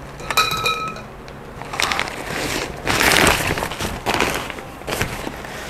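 Fabric carry bag of a folding camp table rustling and crinkling as the table's parts are pulled out, with a short high squeak about half a second in and a few light knocks near the end.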